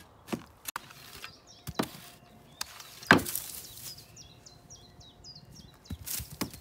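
Spades striking and scraping into soil, a few separate strokes with the loudest about three seconds in. A bird sings a quick run of short repeated chirps about four seconds in.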